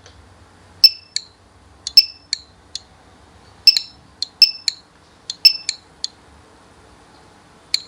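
USB barcode scanner beeping as products are scanned one after another: about fifteen short, high electronic beeps in small quick groups, each a successful read.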